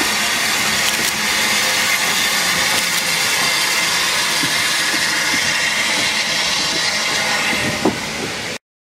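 Steam locomotive 52322, a Lancashire & Yorkshire Railway 0-6-0 goods engine, working past close by with a steady rush of steam hiss and running noise. The sound cuts off suddenly near the end.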